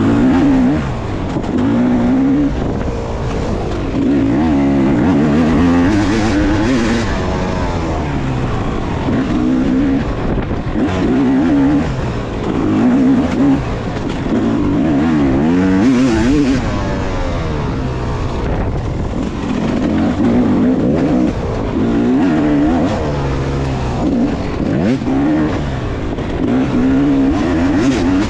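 A Yamaha 250 cc two-stroke dirt bike engine is worked hard through the throttle while racing off-road. Its pitch rises and falls again and again as it accelerates, shifts and backs off, every second or two.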